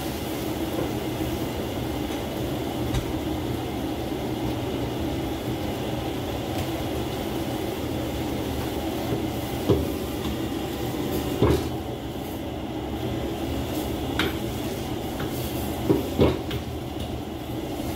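A gas wok burner running steadily under leafy greens sizzling in a steel wok. A metal ladle knocks and scrapes against the wok a few times, about ten seconds in, at eleven and a half seconds, and twice close together near sixteen seconds.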